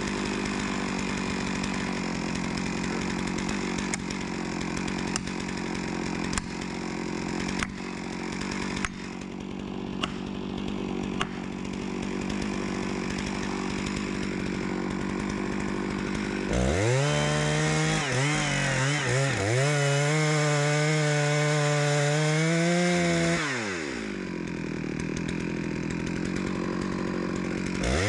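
Stihl MS660 Magnum two-stroke chainsaw running at high revs and cutting wood, with a few sharp cracks in the first half. About two-thirds of the way through it gets louder and its pitch swings up and down, dipping and recovering as the load on the chain changes.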